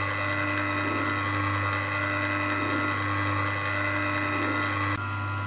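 Small electric ice cream maker's motor running steadily, turning the paddle through caramel ice cream mixture that is thickening as it freezes; a steady hum with a higher whine, dipping slightly near the end.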